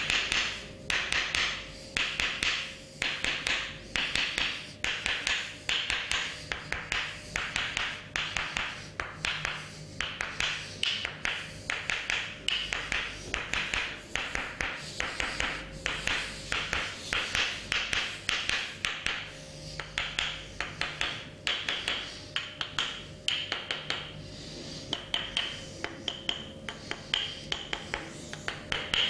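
Barber's hands striking a client's body in percussive massage: a rapid, steady run of sharp slaps and taps, several a second.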